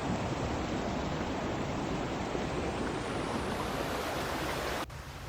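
Creek water rushing over rocks, a steady hiss that drops suddenly to a much quieter hush near the end.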